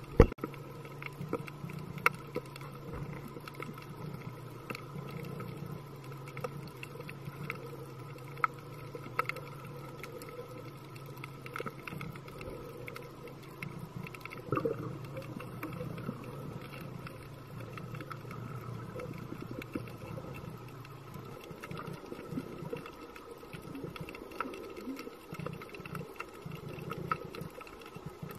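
Underwater sound picked up by a diver's camera in its housing: a steady low hum with scattered sharp clicks and crackles. The hum breaks up and fades a few seconds before the end.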